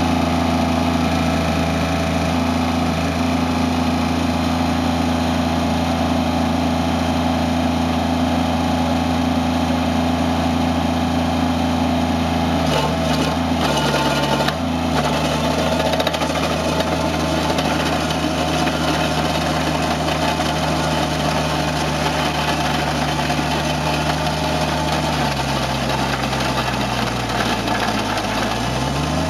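Toro Dingo compact utility loader's engine running steadily, driving a Harley power rake attachment whose rotor churns through loose gravel. Near the end the engine note sags under load and then picks back up.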